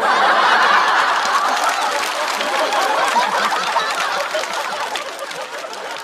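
Studio audience laughing at a stand-up punchline. The laughter breaks out loudly at once and slowly dies away.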